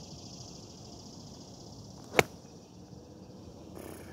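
Golf club striking a ball on a full swing: one sharp, loud crack about two seconds in, with a brief swish building just before it. The strike is a clean, pure one.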